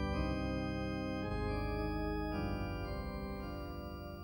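Background music of sustained organ chords, changing chord twice and slowly fading.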